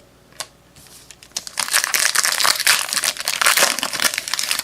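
Foil wrapper of a trading card pack crinkling as it is torn open and handled: a few light clicks, then from about a second and a half in a loud, dense crackle.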